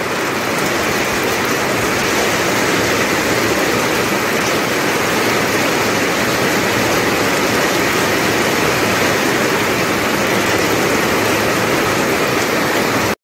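Heavy rain falling steadily, an even loud rush of water.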